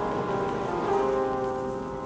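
Background music: soft held notes, changing every second or so, over a faint hiss.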